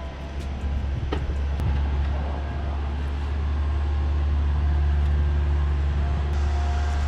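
An engine running steadily with a low hum that swells slightly past the middle, with a sharp click about a second in.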